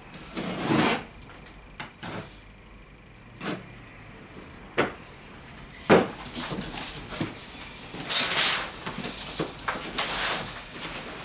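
Cardboard box being handled and opened: rustling and scraping of cardboard as the top flaps are pulled open, with several sharp knocks as the box is shifted and set down on the table, the loudest about six seconds in.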